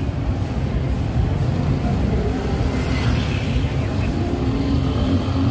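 Street traffic at close range: cars idling and creeping past, a steady low engine and tyre rumble.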